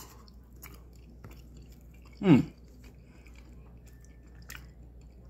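A man chewing a mouthful of poutine (fries, gravy, cheese curds and beef), with faint small wet mouth clicks. About two seconds in he makes one short voiced sound that falls in pitch.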